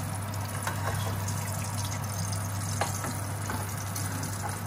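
Steady hiss of cooking on a gas hob with a constant low hum, broken by a few faint light clicks.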